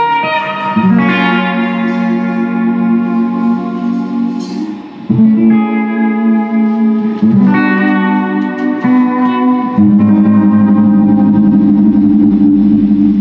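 Jazz band playing live, with an electric guitar through effects to the fore, holding sustained chords that change every second or two. The music drops back briefly about five seconds in, then swells and stays loud.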